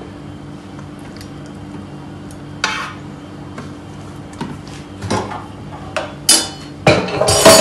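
Metal utensil knocking and scraping against a stainless-steel roasting tray in scattered short clinks, with the loudest clatter near the end. A faint steady hum runs underneath.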